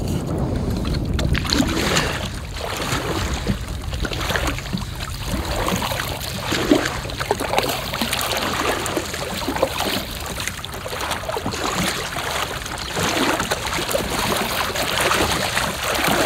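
Kayak being paddled through choppy water: paddle strokes splashing and dripping and small waves slapping the hull, over steady wind noise on the microphone.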